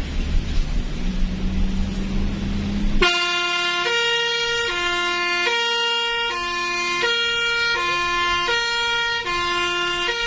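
A vehicle engine runs with a steady low drone, then about three seconds in a multi-tone 'telolet' bus horn starts suddenly. It switches back and forth between a low and a high note, each held just under a second, in a two-tone pattern.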